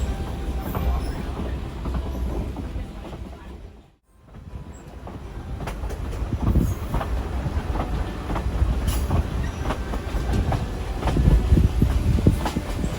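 Excursion train cars rolling along the track: a steady rumble with irregular clicks and knocks of the wheels over the rails. The sound drops out briefly about four seconds in, then returns.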